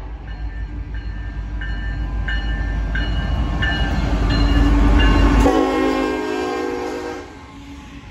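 Two Union Pacific diesel locomotives passing close by, their engines and wheels rumbling louder as they go past, with the locomotive bell ringing in a steady beat, about three strokes every two seconds. About seven seconds in, the rumble drops away to the quieter rolling of covered hopper cars.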